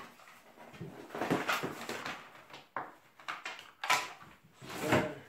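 Plastic power supply adapters and their cables being lifted out of a box and set down on a wooden table: rustling with several clunks, the loudest about four and five seconds in.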